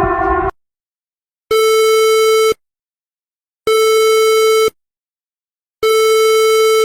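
Electronic emergency-alert tone: three identical buzzy beeps, each about a second long with about a second of silence between them. A held siren-like chord cuts off about half a second in, just before the beeps.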